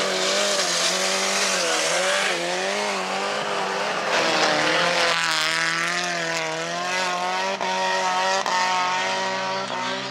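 Several stock cars' engines revving hard as they race on a dirt track, the pitches of the different engines rising and falling against each other.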